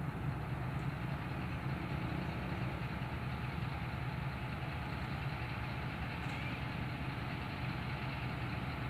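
Pakistan Railways ZCU-20 (GE U20C) diesel-electric locomotive idling at a standstill: a steady low engine hum that does not change.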